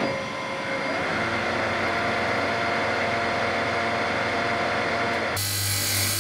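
A metal lathe running with its chuck spinning, turning a screw down to shorten it, a steady machine sound with several steady tones in it. About five seconds in it gives way abruptly to a bench grinder running, with a screw end held against the wheel, a steady low hum with a hiss over it.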